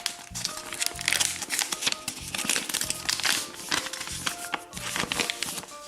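Toy packaging crinkling and rustling in quick, irregular bursts as it is handled and opened, over background music with a light melody.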